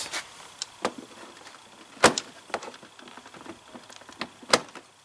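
Sharp clicks and scraping of a metal push-on retaining clip being forced onto the plastic mud guard with a large screwdriver. The two loudest snaps come about two seconds in and near the end.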